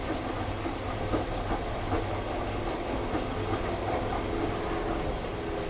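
Bosch front-loading washing machine turning its drum with wet laundry while filling with water for the rinse, with a steady motor hum underneath.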